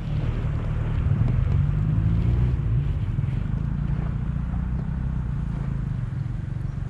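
Strong wind buffeting the microphone: a low, gusty rumble that swells and eases, with no speech.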